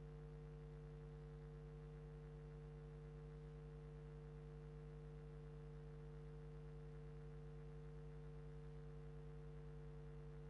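Near silence: a faint, steady electrical hum with no other sound.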